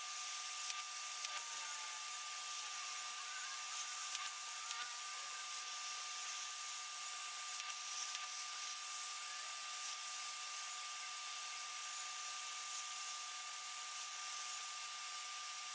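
Plasma cutter torch on a CNC cutting table cutting a plate out of sheet steel: a steady hiss of arc and air with two thin steady tones through it. There are a few sharp clicks in pairs.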